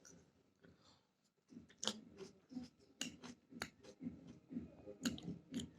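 A person chewing raw tomato close to the microphone, with sharp mouth clicks about twice a second that start after a short pause about a second and a half in.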